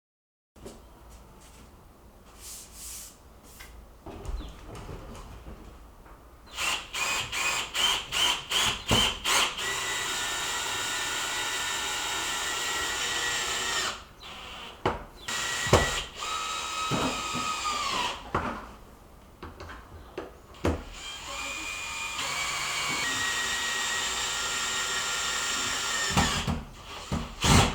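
Power drill: the trigger is pulsed in quick short bursts, then held for long steady runs of motor whine that wind down in pitch when it is released. A few sharp knocks fall between the runs.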